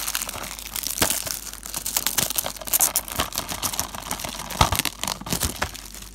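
Plastic shrink wrap being torn and crinkled off a DVD case: a dense, continuous run of sharp crackles and rustles that eases off at the very end.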